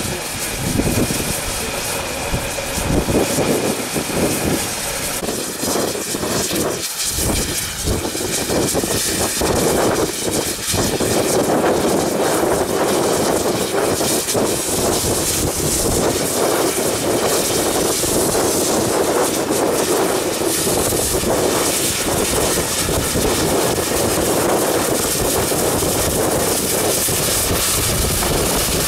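Welsh Highland Railway narrow-gauge Garratt steam locomotive giving off a steady hiss and roar of steam. The sound is uneven for about the first ten seconds, then holds at a constant level.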